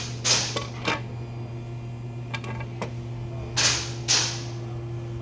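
1999 Honda Civic engine idling roughly: a steady hum broken at irregular intervals by short hissing bursts and clicks, the loudest two about three and a half and four seconds in. The owner puts the rough idle down to a broken camshaft.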